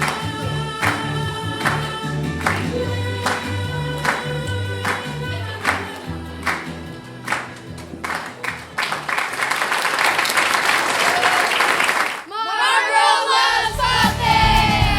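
Upbeat Christian children's song with a group of singers over a steady drum beat and bass. About two thirds of the way through it turns into a wash of noise, then breaks off briefly with a few gliding notes before the music comes back in with a heavier bass.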